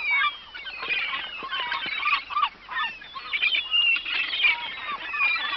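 A flock of seagulls calling, with many short cries overlapping one another.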